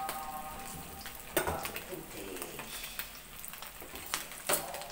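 Small river fish deep-frying in a wok of hot oil, sizzling and bubbling steadily, with a few sharp clicks, the loudest about a second and a half in.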